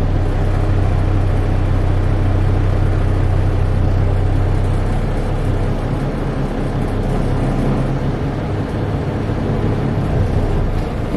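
Semi-truck's diesel engine running, heard from inside the cab as the tractor-trailer creeps forward in drive for a service-brake test. It is a steady low drone that eases off after about six seconds as the brakes are applied.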